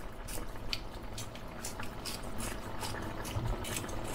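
Chicken risotto simmering in stock in a frying pan, the thick liquid bubbling with small irregular pops.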